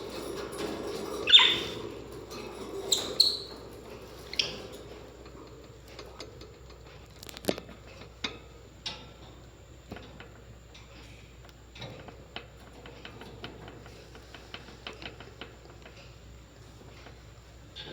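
Birds giving a few short, high chirps in the first few seconds, then a long run of soft scattered clicks and taps, with a louder tick about seven and a half seconds in.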